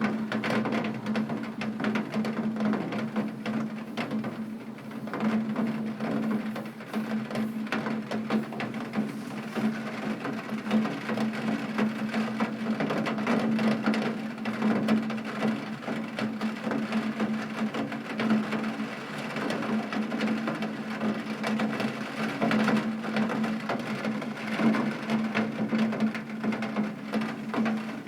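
Rain drumming on a tin roof: a dense, steady patter of drops striking metal, with a low hum underneath.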